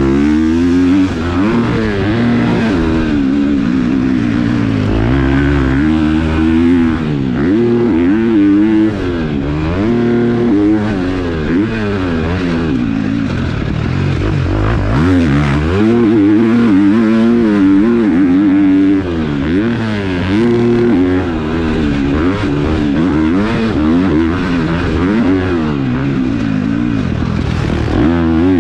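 A KTM four-stroke motocross bike ridden hard around a track, its engine revving up and dropping back again and again as the rider opens and closes the throttle and shifts.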